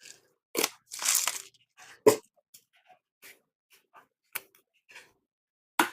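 Kitchen handling noises while seasoning a pot: several sharp knocks and clicks spread out over a few seconds, with a brief rustle or crunch about a second in.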